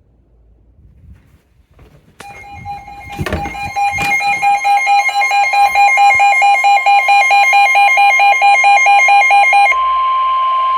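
Weather alert radio alarm: a loud, fast-pulsing electronic beep starts about two seconds in, with a couple of knocks soon after. Near the end it switches to a steady single tone, the NOAA Weather Radio warning alarm tone that comes before a new alert message.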